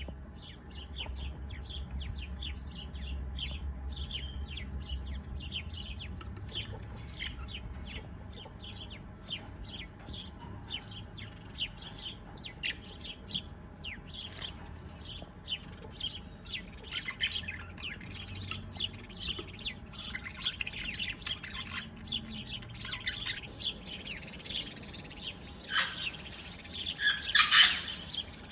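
Songbirds chirping: many short, high chirps overlapping, growing busier and louder in the last several seconds. A low rumble lies underneath in the first few seconds.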